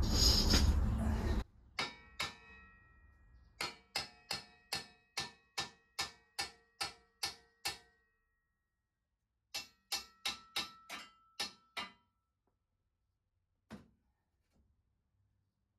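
Hammer tapping on the steel hitch receiver of a pickup to seat it, each strike ringing like metal. There are two taps, then a run of about a dozen at roughly two or three a second, a pause, about seven more, and a single last tap near the end. It opens with a second of loud handling noise that stops abruptly.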